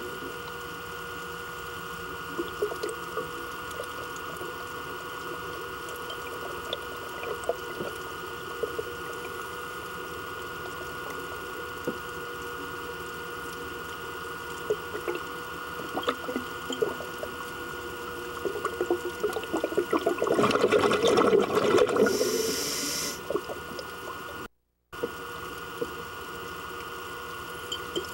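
Underwater ambience picked up through the camera housing: a steady hum with scattered clicks and crackles. About twenty seconds in comes a louder rush of a diver's scuba regulator exhaling bubbles, ending in a short hiss. The sound cuts out for a moment shortly after.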